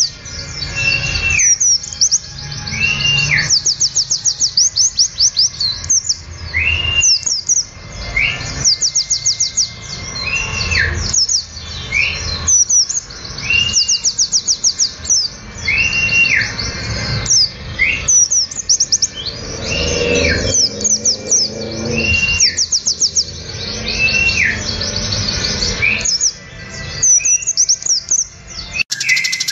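Masteran recording of songbirds singing: rapid high trills over and over, with a clear arched whistle repeated every couple of seconds.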